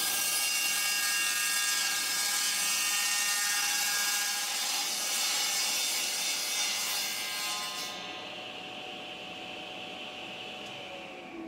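Table saw running and ripping a thin shave off an oak leg blank, a steady motor whine under the cutting noise. About eight seconds in the cutting ends and the saw runs on more quietly, free of the wood.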